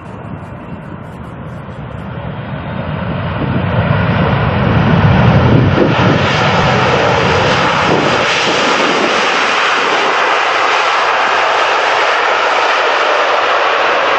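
Jet airliner on landing approach passing close by: the engine noise grows louder over the first five seconds, with a deep rumble at its peak, then holds loud and steady as a hissing jet roar.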